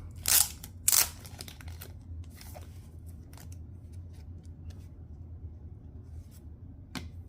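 Trading-card package being opened and handled: two loud tearing or scraping sounds within the first second, then light rustling and small clicks, with one sharp click near the end.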